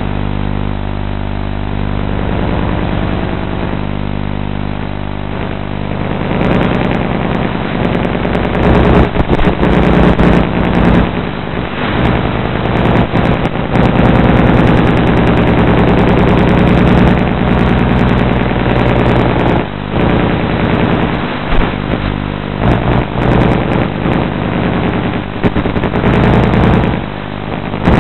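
A small engine running steadily, then from about six seconds in louder and uneven as it speeds up. Wind buffets a vehicle-mounted microphone.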